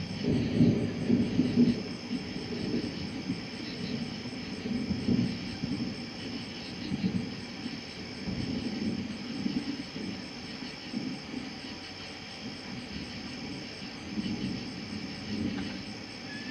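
Thunder rumbling in irregular rolls, loudest in the first two seconds and then fading. A steady high chorus of insects runs underneath.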